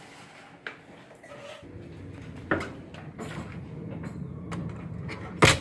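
A hotel room door's lever handle and electronic-lock latch being worked as the door is opened: a few sharp clicks, then one loud knock near the end.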